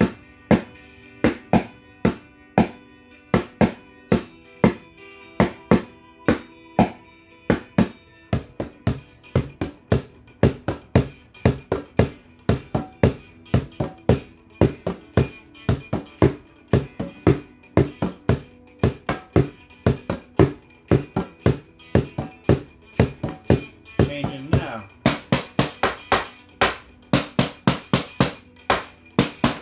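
Improvised kitchen drum kit: a metal ladle and a spoon beating a steady rhythm on an upturned plastic mixing bowl, a plastic tub and a metal coffee can, about two to three strikes a second, over a backing track with guitar. Near the end the hits turn brighter and come faster as the ladle moves onto the metal coffee can.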